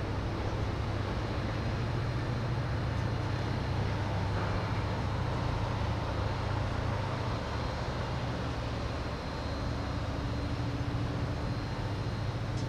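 Steady low mechanical hum of distant machinery under an even wash of background noise, with a faint high whistle throughout and no sudden events.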